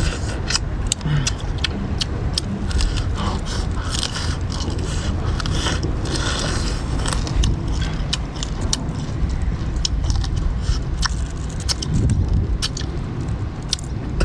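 Cooked shell-on shrimp being bitten into and peeled by hand: many quick cracks and clicks of shell, over a steady low rumble.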